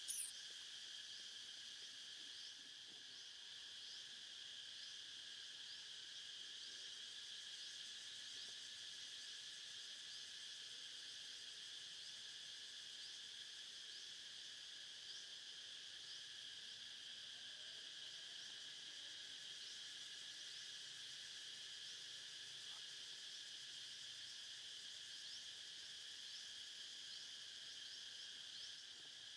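Faint, steady chorus of forest insects: a continuous high buzz with short chirps repeating at an even pace over it. A brief sharp click comes right at the start.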